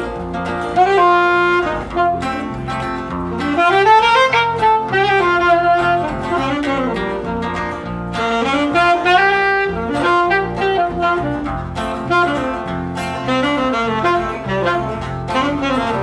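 Live band instrumental break: a saxophone plays the melody over strummed acoustic guitar and electric bass, in a country tune with no singing.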